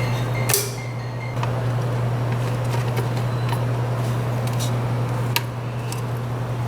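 Steady low hum with a few light, sharp metallic clicks, the loudest about half a second in: pliers working a hose clamp onto a coolant hose.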